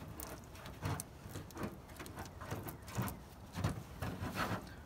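Toothbrush scrubbing epoxy onto the aluminum jon boat hull under the seat: irregular short scrapes and light knocks, a few louder ones near the end.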